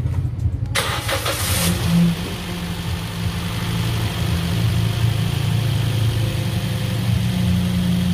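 Toyota Vios engine being started: the starter cranks just under a second in, the engine catches about two seconds in, then it settles into a steady idle.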